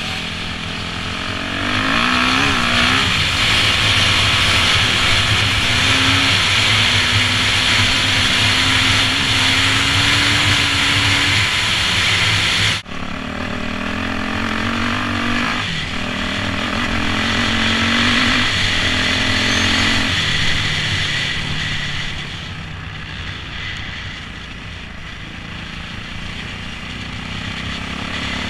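2008 Yamaha YZ450F's four-stroke single-cylinder engine heard from on board, its pitch climbing and dropping again and again as the rider works the throttle along the trail. The sound breaks off abruptly for an instant about thirteen seconds in, and it runs softer over the last several seconds.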